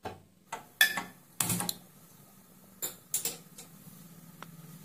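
A series of sharp clinks and knocks as kitchen utensils and cookware are handled, about seven in all, with the loudest about a second in. Under them is a faint steady low hum.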